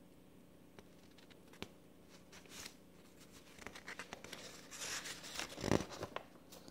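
Sheets of paper rustling and flapping as a page is turned over by hand, after a couple of light taps; the loudest flap comes near the end.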